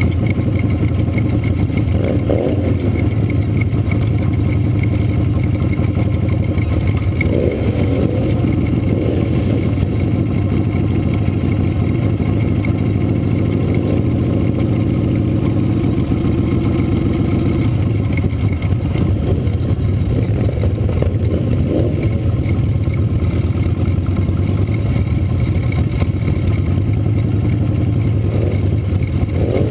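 Motorcycle engine running at low parade speed, heard close up from the bike itself: a steady low rumble that briefly rises in pitch a few times as the throttle is opened.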